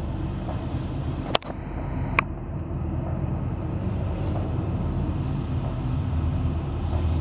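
Diesel freight locomotive approaching at low speed, its engine a steady low rumble, with two sharp clicks about a second and a half and two seconds in.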